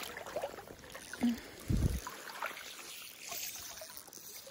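Lake water sloshing and lapping around wading legs as someone wades, with a low thump about two seconds in.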